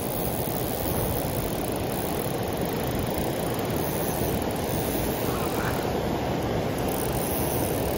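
Steady rushing of water flowing below a dam, an even low noise with no breaks.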